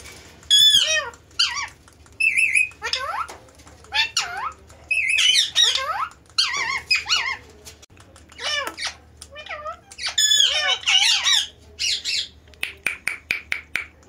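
Indian ringneck parakeets calling: a long run of harsh, arching squawks and chattering calls, with a quick series of short calls near the end.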